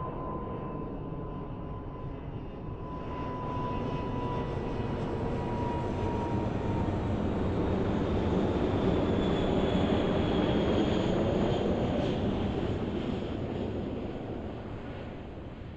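Airbus A340-300's four CFM56 turbofans at approach power, an airliner on short final passing low overhead. The jet roar builds, is loudest about halfway through with a high whine over it, then fades. A steady whine slowly falls in pitch in the first half.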